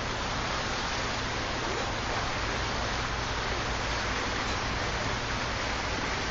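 Steady rushing of water along the hull of a passenger boat under way, over a low, even engine hum.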